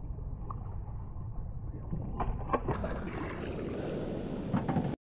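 Wind and water noise aboard a small fishing boat at sea: a rough low rumble, joined about two seconds in by a wider rushing hiss, with a few sharp knocks. It cuts off suddenly near the end.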